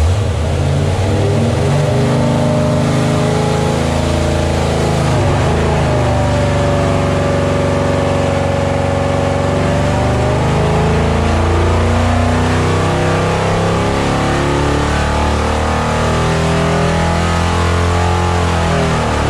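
Chevrolet 454 big-block V8 running at full load on an engine dynamometer, breathing through a four-barrel carburetor on its stock cast-iron intake. Its revs climb steadily from about 2,900 to about 5,100 RPM through the pull and begin to fall right at the end.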